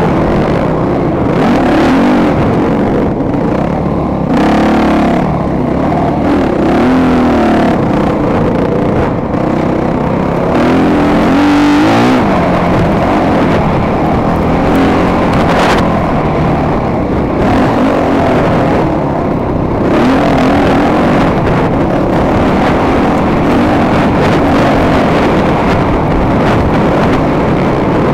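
Motocross bike engine revving hard, its pitch climbing and falling again and again, with a sharp drop about twelve seconds in.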